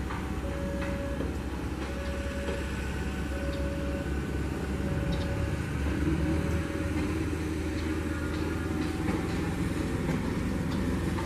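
Diesel engine of a KAI KUJR track-inspection car idling at the platform, with a short beep repeating about once a second through the first half. The engine note rises a little about halfway through.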